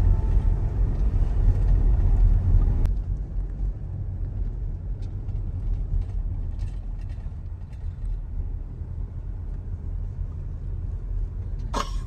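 Car driving on a road, heard from inside the cabin: a steady low rumble of engine and tyres that turns quieter about three seconds in, with a single sharp knock near the end.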